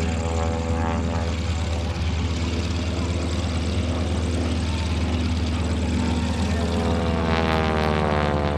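North American SNJ-6 Texan's nine-cylinder Pratt & Whitney R-1340 radial engine and propeller running steadily through aerobatics. Near the end its pitch rises and the sound turns harsher and louder as the aircraft pulls up into a climb.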